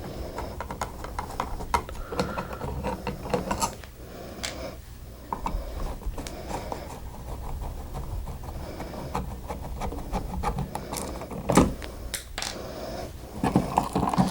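Small clicks, scrapes and rattles of a screwdriver and a wall switch being unscrewed and worked out of a plastic switch box, with a sharper click about eleven and a half seconds in.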